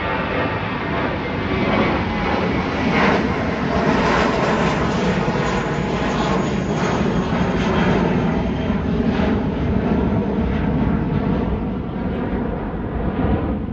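Airbus A320-family airliner's jet engines climbing out after takeoff: a loud, steady rush of engine noise that holds through the whole pass overhead.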